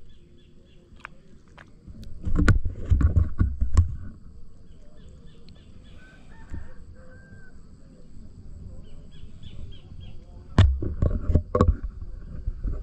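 A hand splashing and swishing in shallow water in two bouts, about two seconds in and again near the end, with faint bird calls in between.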